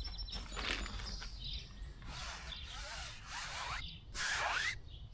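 Handling noise: several bursts of rustling and scraping as something is opened and searched through, the loudest about four seconds in.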